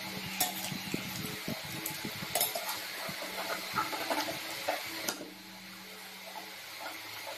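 Forks and spoons clicking and scraping on ceramic plates and a steel bowl during a meal, busy for the first five seconds with a few sharper clinks, then quieter.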